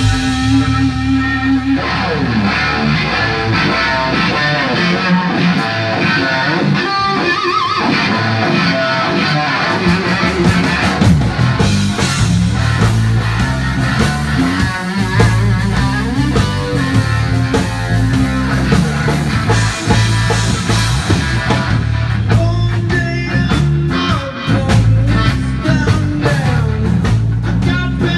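Live blues-rock band playing: a Stratocaster-style electric guitar plays lead lines with bends over bass and drums.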